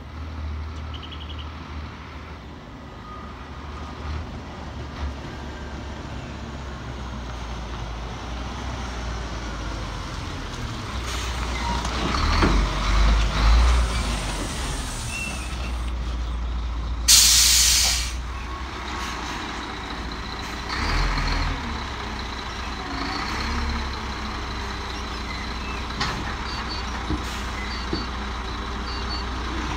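Diesel engine of a front-lift garbage truck running as it approaches, growing louder as it passes close. About halfway through, a sharp hiss of air brakes lasts about a second, and the engine keeps running low and steady afterwards.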